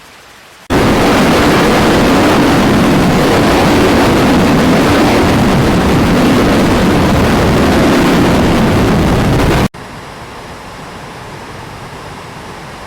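Floodwater rushing in a loud, steady noise that starts abruptly just under a second in and cuts off near ten seconds, followed by a quieter steady rushing.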